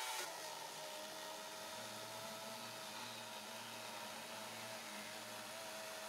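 EGO 56V battery chainsaw running under load as it cuts through a stack of 4x4 lumber, a steady whir with a thin high whine, heard faint.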